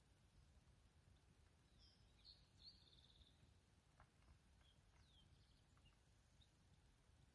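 Near silence with a few faint bird chirps, a short cluster about two seconds in and a falling call near five seconds, and a couple of soft ticks.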